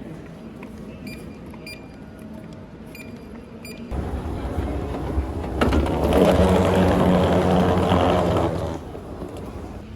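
A few short high beeps over a low background, then a loud mechanical rumble from a vehicle or engine. The rumble starts about four seconds in, swells, and drops away shortly before the end.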